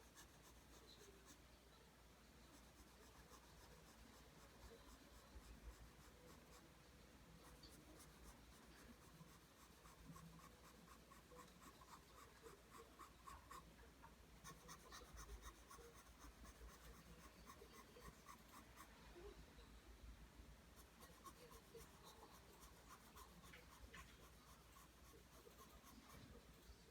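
Faint pencil scratching on paper as lines are drawn one after another in quick, repeated strokes.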